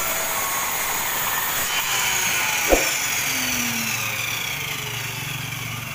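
MODERN electric miter saw's motor and blade spinning down after a cut, a whine falling steadily in pitch as it slows. A sharp click sounds just under three seconds in.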